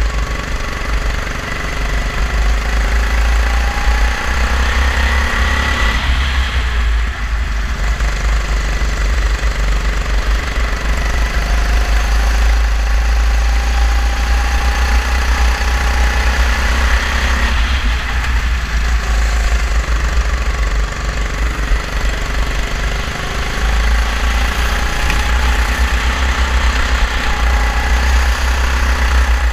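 Racing kart engine heard onboard, revving up along the straights and dropping off three times as the kart slows, with other karts' engines mixed in. A heavy low rumble sits under it on the microphone.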